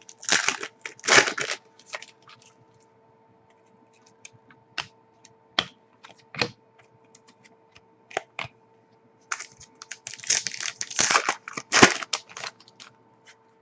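Glossy trading cards being handled and flicked through one by one: sharp clicks and rustles of card against card. There are two denser flurries of handling, near the start and about two-thirds of the way in, with single clicks between.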